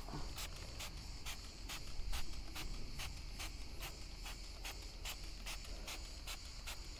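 Hand trigger spray bottle squeezed again and again, about two short sprays a second, misting water onto car plastic trim.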